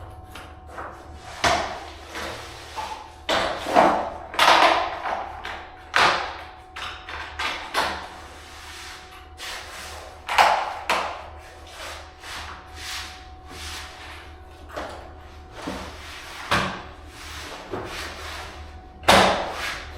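Flooring underlayment being slid and pushed into place over concrete: irregular rustling scrapes and knocks, with a louder thump near the end.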